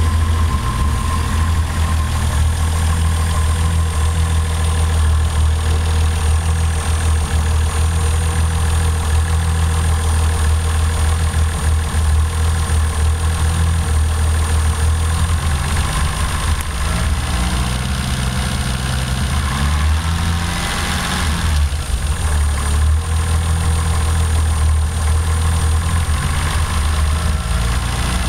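Toyota 7M-GTE turbocharged straight-six engine idling with a Colortune spark plug fitted in cylinder 1, which misfires. A brief rise in pitch comes about 20 seconds in.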